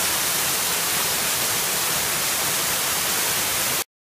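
Waterfall, a steady hiss of rushing water close to the microphone, cut off suddenly near the end.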